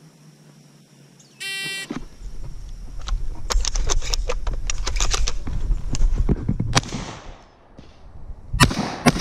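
A shot timer gives one short electronic beep about a second and a half in. Rumbling movement and handling noise with scattered clicks follows as the shooter moves off. Near the end come two shotgun blasts about half a second apart, the loudest sounds here.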